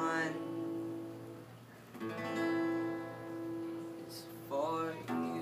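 Acoustic guitar strummed chords ringing out and fading, with a new strum about two seconds in and another near the end.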